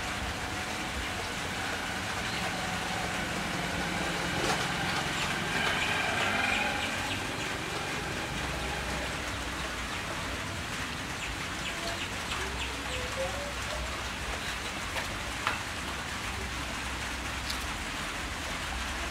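Steady, even background hiss like rain or a fan, with faint wavering distant tones a few seconds in and a few light clicks later on.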